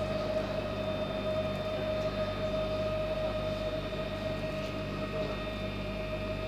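Steady electric hum inside a train carriage: a constant mid-pitched tone with fainter higher tones over a low drone, and no wheel clatter or other sudden sounds.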